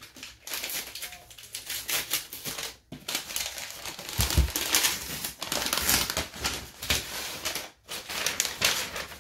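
Gold paper wrapping being pulled, torn and unfolded off a hardcover book, crinkling and rustling throughout. A dull thump about four seconds in.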